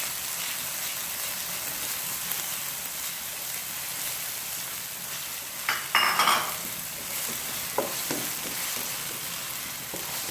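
Chopped onion sizzling in hot olive oil in a pan, being stirred, with a louder clatter of the stirring utensil about six seconds in.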